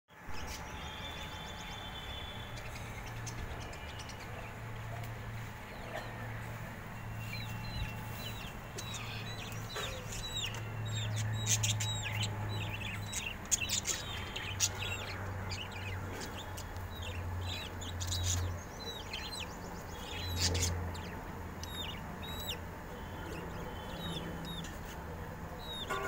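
A flock of budgerigars chirping and chattering, with many short, quick chirps that come thick and fast for a few seconds in the middle. A steady low hum runs underneath.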